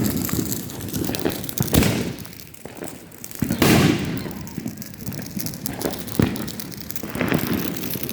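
Fireworks going off: a run of sharp bangs with crackling between them, the loudest about three and a half seconds in.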